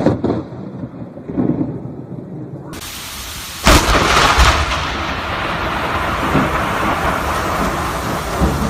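Close thunderclap from a lightning strike: a sharp crack about three and a half seconds in, followed by rumbling over the steady hiss of heavy rain. Before it come a couple of softer thuds of thunder.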